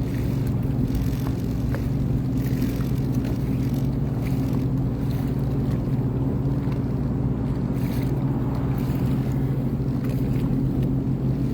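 Sea-Doo Fish Pro personal watercraft engine running at a steady speed, a constant low drone with no revving.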